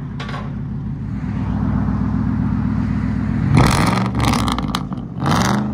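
Ford 5.4L Triton V8 running through true dual straight pipes with high-flow cats and no mufflers: a steady, slowly swelling idle, then two sharp throttle revs, about three and a half and five seconds in, each rising and falling in pitch.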